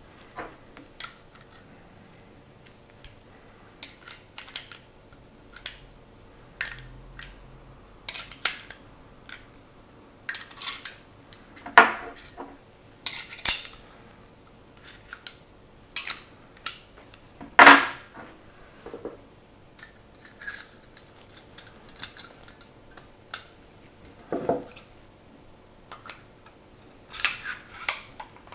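Steel pistol parts of a field-stripped CZ 75 SP-01 clicking and clinking as they are handled and fitted back together: the barrel bushing twisted into the slide, then the slide worked onto the frame near the end. Irregular clicks with short pauses between, one louder clack about two-thirds through.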